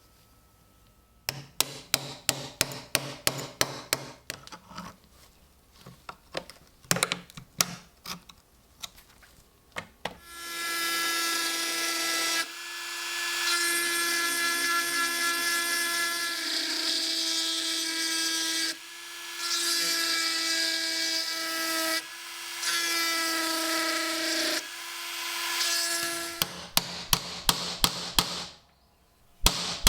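A power tool runs in several stretches of a few seconds each, with a steady pitched whine that cuts off and starts again four times. Before it, and again near the end, comes a run of quick sharp strokes, several a second.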